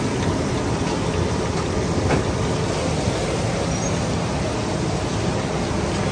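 Battered fish pieces deep-frying in a large karahi of hot oil: a steady, dense sizzle.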